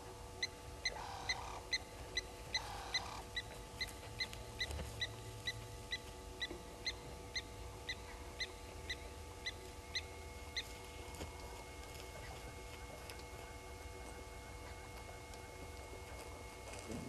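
Blacksmith lapwing alarm call: short, sharp, ringing notes repeated about twice a second for some ten seconds, growing a little fainter before they stop. It is the lapwing's alarm at a raptor, here an African harrier hawk.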